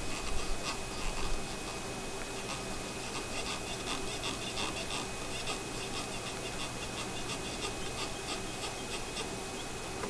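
Hot air rework station blowing with a steady hiss and a thin high whine while desoldering a laptop power jack. Rapid small crackles and ticks come from about two seconds in as the jack is worked back and forth with pliers, after a few low bumps in the first second or so.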